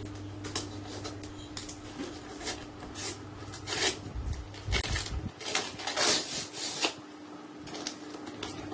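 Gift-wrapping paper being rustled and torn off a present by hand: scattered crinkles, then a run of louder rips about four to seven seconds in, over a steady low hum.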